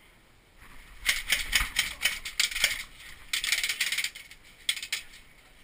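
Cyma Glock electric airsoft pistol (AEP) on a 7.4 V lipo, firing rapid strings of clicking shots: one string starts about a second in and a second follows after a short pause.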